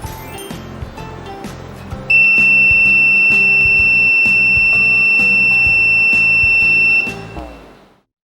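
LAMPTAN LED fire alarm sounding: one loud, steady, high-pitched tone that starts about two seconds in and holds unbroken for about five seconds before cutting off, over background music that then fades out.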